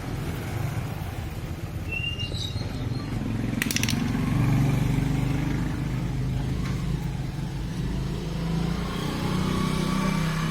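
A motorcycle engine running, its level swelling and easing off, with a brief sharp click about three and a half seconds in.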